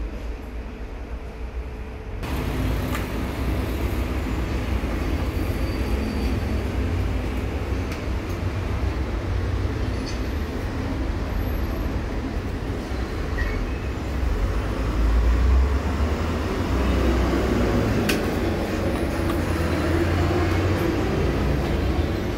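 Steady low rumble and background noise, louder from about two seconds in, with a few faint clicks from a screwdriver and small parts being handled.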